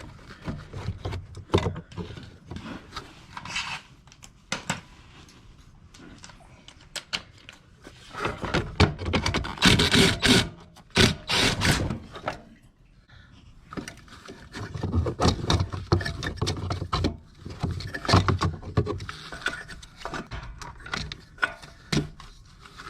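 Hand work on a scooter's fuel pump assembly: clicks, knocks and scraping as a 10 mm bolt is undone and the assembly is worked loose and lifted out of the fuel tank. There is a louder run of scraping and knocking about ten seconds in.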